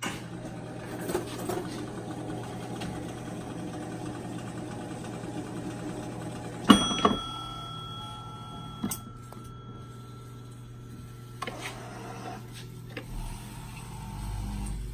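Electromechanical crane of a 1970s 'Junkyard' coin-op arcade machine: its motor and gearing whir for the first several seconds, then a loud clunk. A steady high tone sounds for about five seconds after the clunk, followed by a few lighter clicks, all over a steady electrical hum.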